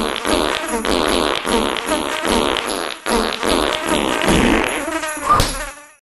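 A rapid, continuous string of cartoon fart sound effects, loud and buzzy, with a short rising tone about five seconds in, fading out at the very end.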